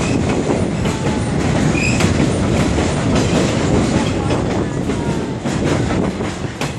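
Passenger train rolling along the track, its wheels rumbling steadily and clacking over the rail joints, heard from an open-sided car.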